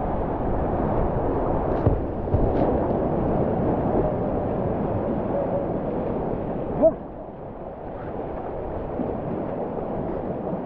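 Whitewater rapids rushing and splashing around a kayak, a loud steady roar that drops noticeably about seven seconds in, just after a brief sharp sound.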